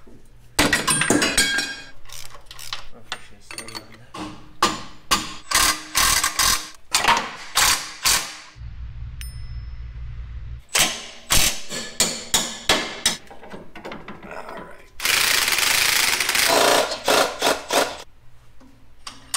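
Cordless impact wrench rattling in a series of short bursts, running suspension bolts during a shock swap. A low hum for about two seconds midway, and a couple of seconds of steady hiss-like noise near the end.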